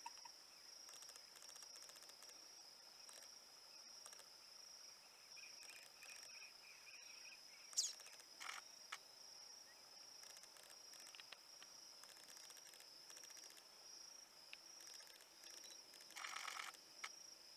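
Faint, steady high-pitched insect drone, like crickets. One short sharp high sound about eight seconds in, and a brief rustling burst near the end.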